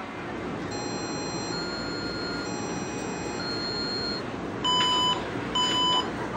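Metro (MRT) electronic signal sounds over the steady rumble of the train: a short melody of soft, held chime tones, then two sharp beeps about a second apart.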